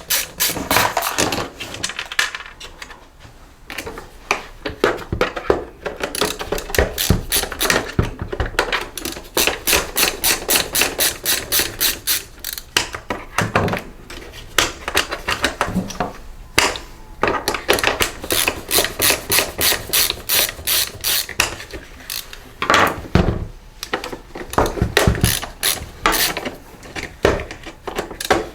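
Ratcheting screwdriver clicking in quick, even runs with short pauses between them as screws are backed out of the blower's housing.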